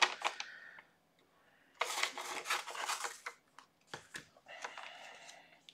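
Scissors cutting sheets of release paper for a diamond-painting canvas, with the paper rustling as it is handled and a few sharp snips of the blades.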